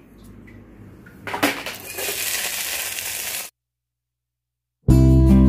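A couple of seconds of rough crackling, hissing kitchen noise with a few knocks, which cuts off abruptly into dead silence. Acoustic guitar music then starts near the end.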